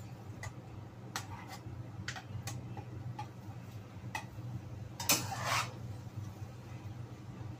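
Kitchen tongs tapping and scraping against a wok as noodles are tossed, with irregular clicks and a louder clatter about five seconds in, over a steady low hum.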